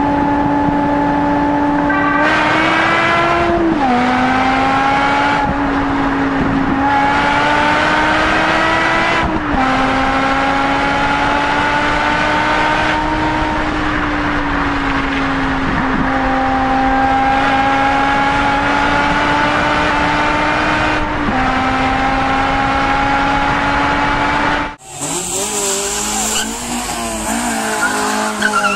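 Car engine under hard acceleration in a road tunnel, revs climbing and dropping back at each upshift every few seconds. Near the end the sound cuts abruptly to another car revving, with tyre squeal.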